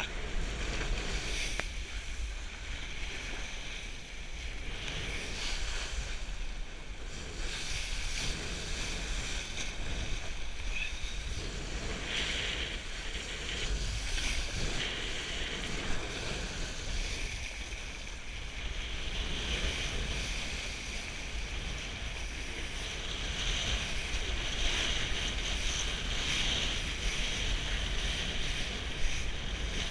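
Wind rumbling on the microphone, with water hissing and splashing under a kiteboard riding across choppy water.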